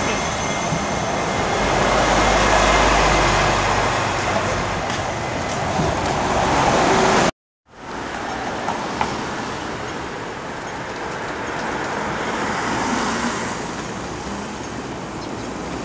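Steady, loud background noise in a bakery for about seven seconds. Then, after a short gap, city road traffic: cars and a coach at a crossing, with a vehicle passing.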